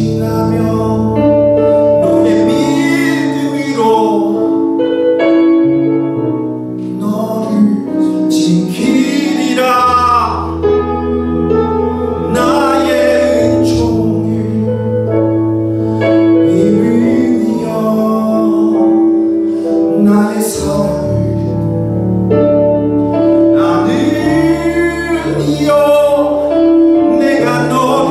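Worship song sung live by a man into a microphone, over sustained keyboard chords.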